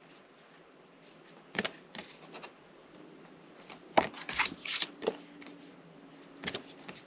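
Paper cards and cardboard inserts being handled, with a few scattered short rustles and light taps.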